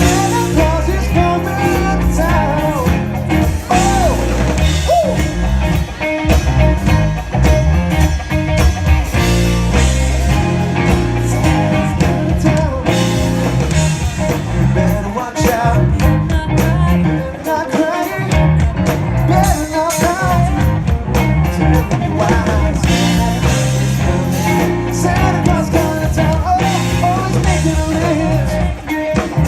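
Live rock band playing with a singer during a sound check: steady drums and bass under guitar, the vocal line carrying over the top.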